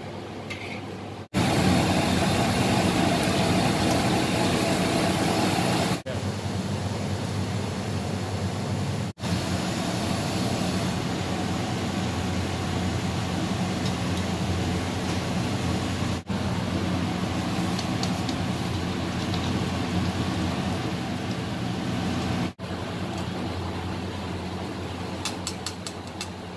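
Steady mechanical roar of a busy commercial kitchen with a low hum underneath, broken off for an instant at several edits. A few faint clicks come near the end.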